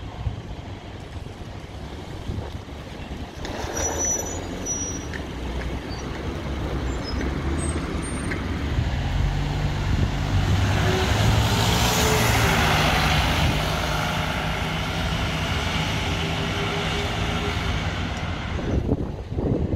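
A diesel bus engine running, growing louder as the bus draws near and loudest about twelve seconds in, then running on at a steadier, lower level.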